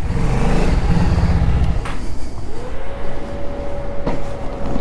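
Motorcycle engine running at low revs for the first couple of seconds, then stopping. This is followed by a steady single high tone that rises at its start and holds level, with a click partway through.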